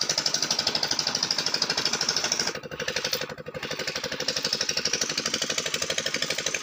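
Small engine running steadily with a rapid, even knocking, about nine beats a second, dipping briefly in level a little before halfway.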